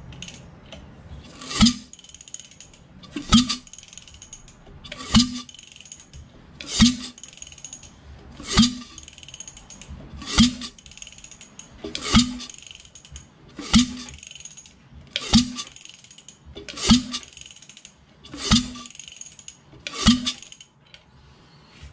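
Rebuilt Mazda 13B two-rotor peripheral-port rotary engine being turned over slowly by hand, giving a compression pop about every 1.7 seconds, twelve in all. The pops are nice and even, a really good sign for the rebuild's compression.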